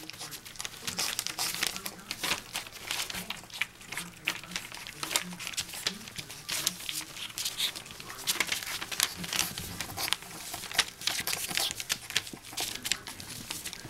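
Australian Shepherd puppies lapping and smacking at a tray of soft puppy mush, their first mush, while the newspaper under them crinkles as they shove in and shuffle about. A dense, irregular run of wet clicks and rustles.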